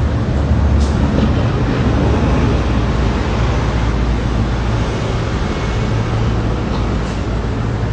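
City street traffic noise: a steady low engine rumble from a city bus passing close by, loudest in the first couple of seconds, over a constant hiss of traffic.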